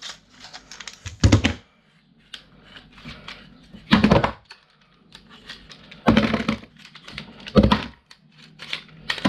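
Clatter and knocks of plastic and metal parts being handled while a fuse board is taken apart, with five louder rattling bursts every one and a half to two seconds and small clicks between them.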